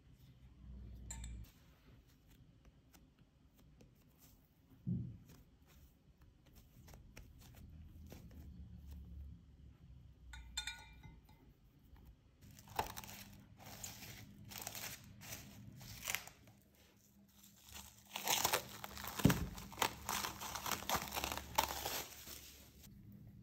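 Plastic cling film being handled, crinkling and tearing, loudest and densest in the last few seconds, with a single low knock in the middle of that stretch.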